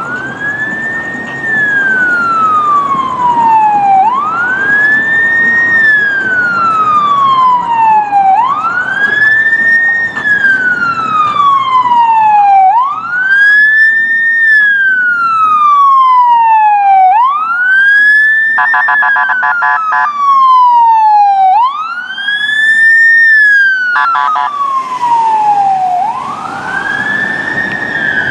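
Emergency vehicle siren on wail, rising quickly and falling slowly about every four seconds. Twice, a little past the middle and again shortly after, short bursts of a rapid pulsing tone cut in over it.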